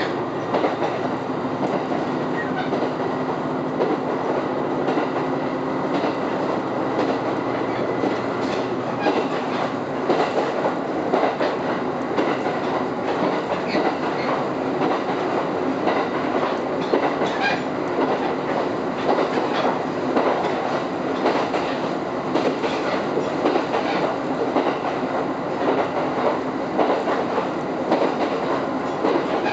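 Kiha 127 diesel railcar running at speed, heard from inside the passenger cabin: a steady running rumble and drone, with wheels clicking over rail joints throughout.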